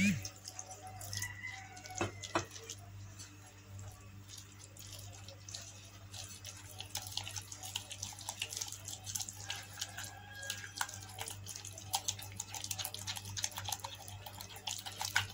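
Wet gram-flour batter being mixed by hand in a glass bowl: soft squelching and dripping, with small irregular clicks that grow busier in the second half. A steady low hum runs underneath.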